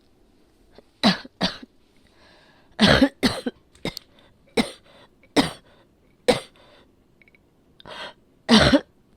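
A woman coughing in repeated short coughs, about ten in all, several coming in quick pairs with short gaps between the bouts. The video tags it as an asthma cough.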